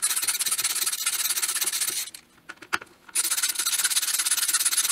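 Ratchet screwdriver clicking rapidly as it backs out the screws holding a plastic belt clip to a Kydex holster. Two runs of about two seconds each, with a short pause between them.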